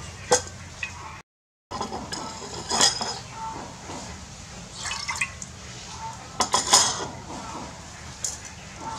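Metal ladle clinking against an aluminium cooking pot as cloudy liquid is scooped and poured back, several sharp clinks with a short metallic ring over the sloshing and splashing of the liquid.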